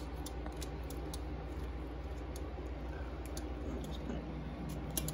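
Stainless steel box grater grating butter over a mixing bowl: light, irregular clicks and ticks, with a quick run of clicks near the end, over a steady low hum.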